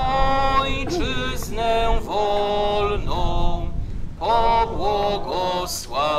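A voice singing a slow sung prayer in long held notes, in short phrases with brief breaks between them.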